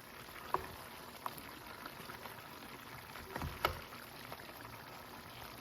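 Chicken and pumpkin stew simmering in a pot, with a spoon knocking against the pot a few times as the pumpkin chunks are stirred in. The loudest knocks come as a pair a little past the middle.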